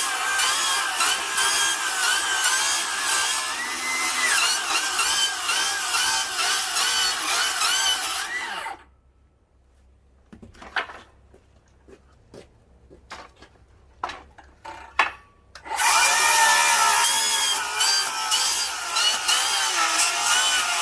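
Milwaukee cordless rear-handle circular saw with a 24-tooth carbide wood-with-nails demolition blade cutting treated 2x lumber driven full of screws and framing nails, its motor pitch wavering as the blade loads up on the metal. About nine seconds in the saw stops, leaving a few clicks and knocks, and about seven seconds later it starts cutting again.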